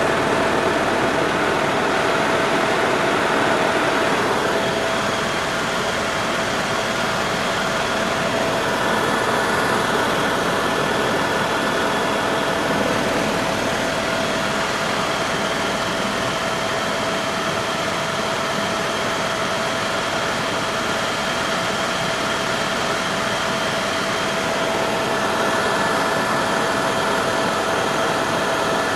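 Helicopter engine and rotor running steadily in flight, heard from inside the cabin: an even rushing noise with a constant whine on top.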